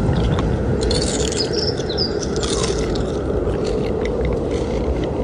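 Hotmoon Omini portable sound machine playing a mixed sound-effect loop: steady cold-wind noise throughout, with recorded bird chirps about a second in and scattered crunching clicks of potato chips being eaten.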